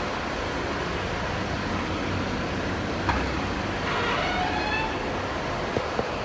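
Steady low rumble of traffic and vehicle engines. Near the end come two sharp metallic clicks as the steel grille door is opened.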